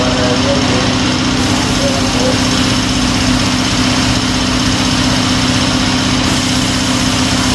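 The electric motor of tyre-shop machinery running with a steady, even hum.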